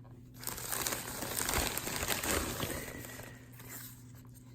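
Packaging crinkling and rustling as a knife is unwrapped from it, loudest in the middle and fading out near the end.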